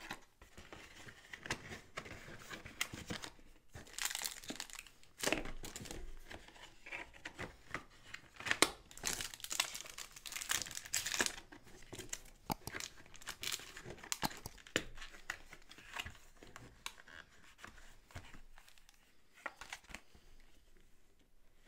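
Irregular crinkling and rustling of packaging and board-game components being handled, with small taps and clicks. The loudest bursts come about four, eight and ten seconds in.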